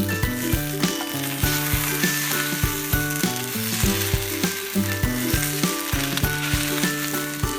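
Background music: pitched notes over a steady beat of about three strikes a second.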